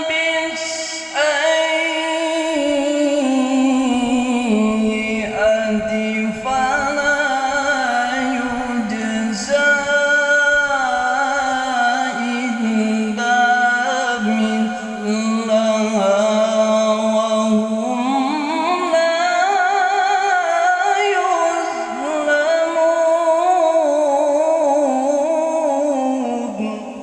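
A male Quran reciter (qari) chanting in melodic tilawah style, drawing out long, ornamented notes with the pitch winding up and down.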